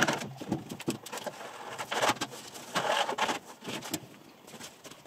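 Thin gold foil heat-shield sheet being handled and pressed into place: irregular crinkling rustles and light clicks.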